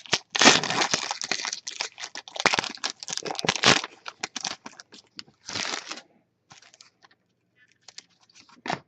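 Foil trading-card pack wrapper crinkling and tearing as it is opened, in dense crackling rustle for about four seconds and again briefly about five and a half seconds in, then a few faint clicks of cards being handled.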